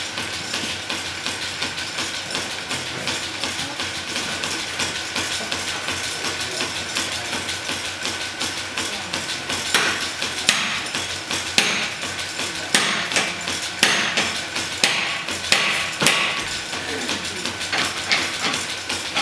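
Blacksmith's hammer striking hot steel on an anvil in a quick, steady rhythm while forging down a shoulder on the bar. The blows grow louder about halfway through.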